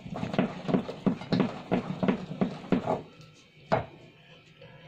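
Wooden spoon beating thick cake batter in a bowl: rhythmic wet slaps, about three strokes a second for some three seconds, then one sharp knock of the spoon near the end.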